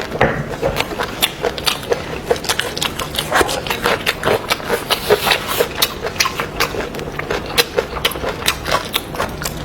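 Close-miked eating sounds: a person chewing and smacking on boiled beef bone marrow, an irregular run of sharp wet clicks, several a second.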